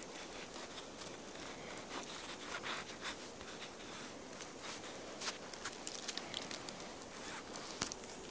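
Knife blade slicing open a crusty flatbread: faint scratchy crackles and clicks as it cuts through the crust, coming thicker from about two seconds in.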